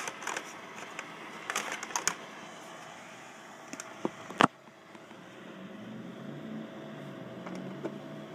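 Handling noise: clicks and knocks as the 16mm projector's controls and power cord are handled, the loudest a single sharp click about four and a half seconds in, over a steady faint hum.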